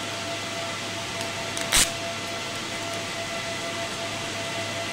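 Steady machine hum of telecom equipment and its cooling, with one sharp crackle of plastic packaging being handled a little under two seconds in.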